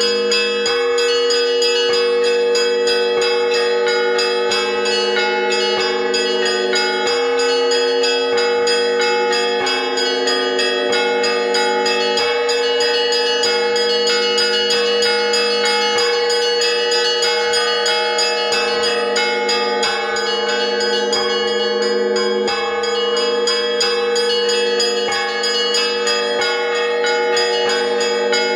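Russian Orthodox church bells rung by a single bell ringer: a continuous, dense peal, with low bells ringing on steadily under rapid strikes of smaller, higher bells.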